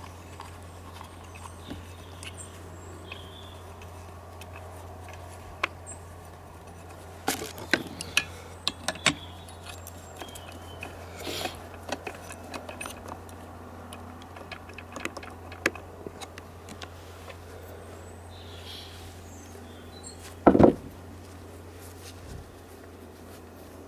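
Scattered metallic clinks and taps of tools and parts as a chainsaw's clutch is screwed back on, with a louder knock about twenty seconds in. A steady low hum runs underneath.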